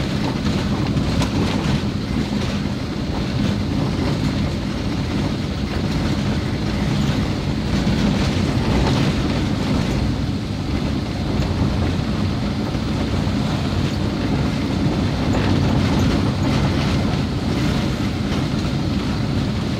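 Steady rumble of a car driving, heard from inside the cabin: engine and tyres on a rough, patched road surface, with light knocks and rattles as it runs over the bumps.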